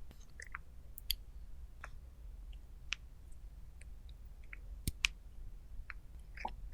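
Scattered light clicks and taps, about a dozen, irregularly spaced, over a faint low hum.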